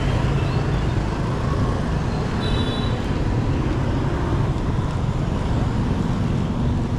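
Steady road traffic noise from passing vehicles, with a brief high-pitched beep about two and a half seconds in.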